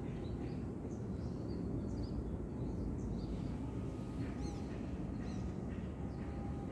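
Small birds chirping: many short, high calls scattered throughout, coming thicker after about four seconds, over a steady low rumble.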